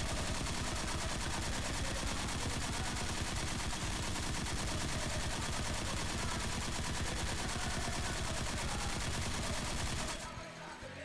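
Machine-gun sound effect: rapid, continuous automatic fire at a steady level, cutting off about ten seconds in.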